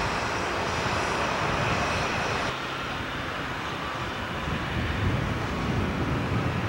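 BC Rail diesel locomotives running with a steady engine drone. After an abrupt cut about two and a half seconds in, a quieter, lower, uneven rumble takes over.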